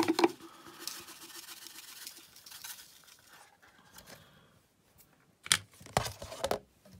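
Powdered OxiClean poured from a plastic scoop into a plastic cup: a soft granular hiss that fades away over the first couple of seconds. A few short rustling, scraping handling noises follow near the end.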